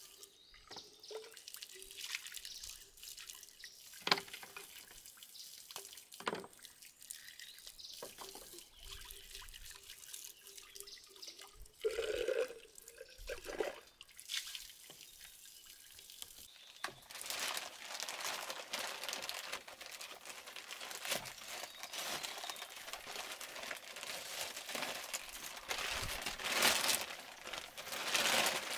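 Water dripping and splashing, with scattered knocks from handling. About two-thirds of the way through it turns into a denser, continuous splashing hiss.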